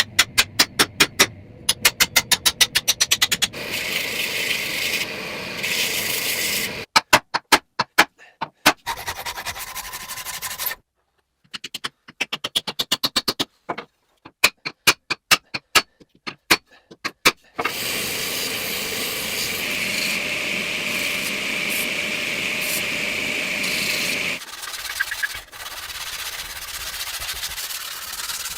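Workshop sounds of knife-making: runs of rapid sharp strikes, broken by sudden cuts to silence, and a long steady stretch of abrasive rubbing on metal or wood about two-thirds of the way through.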